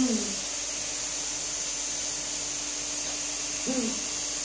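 Dremel rotary sanding tool left running, a steady high hiss over a steady hum. Two short pitched voice sounds break in, one at the start and one near the end.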